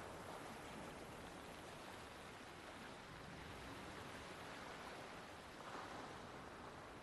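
Faint, steady rushing water ambience with no distinct events.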